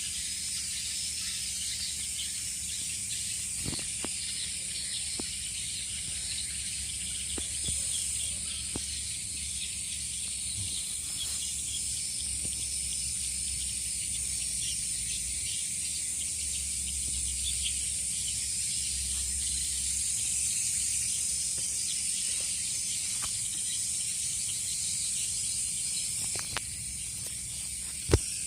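Outdoor ambience of a steady, high-pitched insect drone with light chirping, broken by a few small clicks and a sharp knock near the end.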